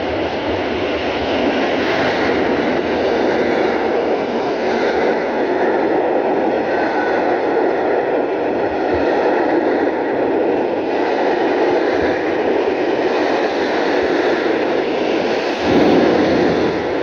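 Passenger train of blue-and-white coaches running past at speed, a loud steady rush of wheels on rails, with a brief louder surge near the end.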